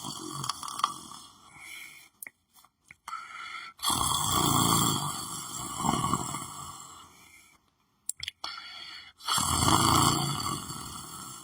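A sleeping person snoring: long snores about every five seconds, one starting about four seconds in and another near the end, with near-silent pauses between breaths.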